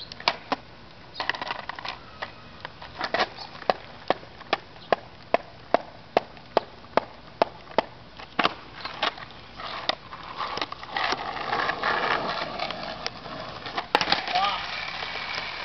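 Skateboard hitting asphalt during trick attempts, as a run of sharp wooden clacks about two a second. Near the end come rougher, noisier stretches that fit wheels rolling on pavement.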